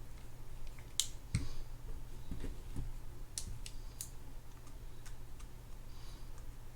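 Irregular light clicks and taps of small metal parts and tools being handled while a Penn Spinfisher 8500SS spinning reel is taken apart, over a steady low hum.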